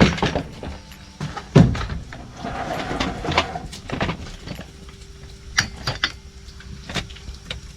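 Scattered knocks and clicks, with a short stretch of scraping about three seconds in, as parts of a Stihl FS 55 R string trimmer are handled and fitted back together.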